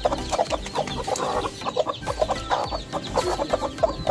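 Hens clucking: a steady run of short clucks, several a second.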